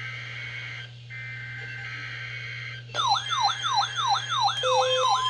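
Weather alert radio alarm going off: a fast, repeating, sweeping siren tone starts suddenly about three seconds in, joined near the end by steady on-off beeps. This is the alarm for an incoming severe thunderstorm warning. Before it there is only a faint steady hum and tones from the radio.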